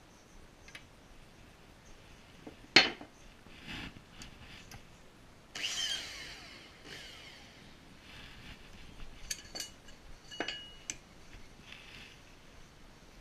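Aluminium tube being handled in a tube bender: a sharp metallic knock about three seconds in, a short scraping slide of metal on metal around six seconds, then several light metallic clinks. The bender's motor is not running.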